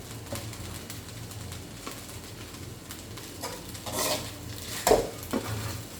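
Fried rice cooking in a pan: a low sizzle with scattered clicks and scrapes of a spatula against the pan, and a few louder knocks about four to five seconds in.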